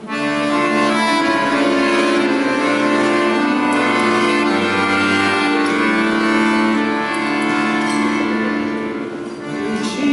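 Accordion playing a tune with held chords under a melody, starting abruptly; the playing eases briefly near the end, then picks up again.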